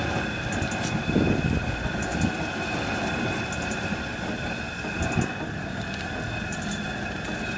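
Steady rumbling hum, with brief louder rustles about a second in, again about two seconds in, and about five seconds in, as paper seasoning packets are shaken out over the pot.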